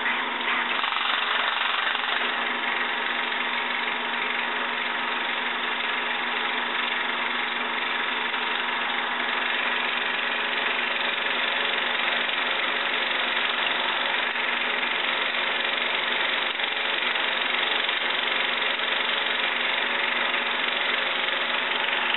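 16mm film projector running in reverse with the lamp off, its motor and film transport running steadily as the film winds back onto the feed reel.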